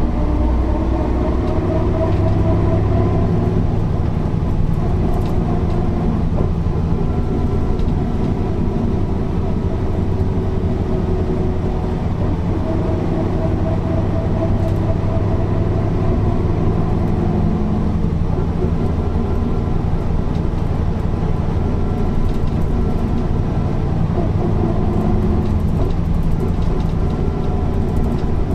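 Mercedes-Benz O408 bus's six-cylinder diesel engine running while the bus drives, its pitch slowly rising and falling with speed.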